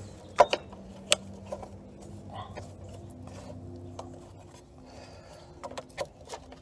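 Small metal clicks and knocks as hands wiggle a motorcycle's rear brake master cylinder free of the frame, with one sharp click about half a second in, another about a second in and a few more near the end, over a faint steady hum.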